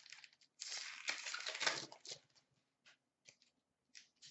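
Trading cards handled by hand: a rustle of card stock sliding and flipping lasting about a second, starting about half a second in, then a few light scattered clicks and taps.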